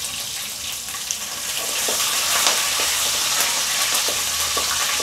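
Fresh curry leaves sizzling in hot oil with fennel and cumin seeds in a kadai. The sizzle grows louder about a second and a half in, as a slotted metal ladle stirs them through the oil.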